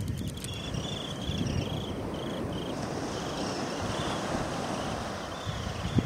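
Wind buffeting the microphone over a low rush of surf on the beach. A thin series of short, high chirps repeats about three times a second.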